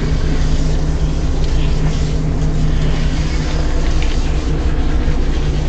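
Steady low hum of an electric motor, with a hiss of water spraying over it.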